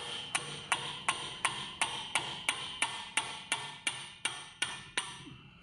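A small hammer tapping steadily on a spanner fitted to a stuck spark plug, about three sharp, ringing metal taps a second, stopping near the end. The taps are working a seized plug loose from an aluminium cylinder head.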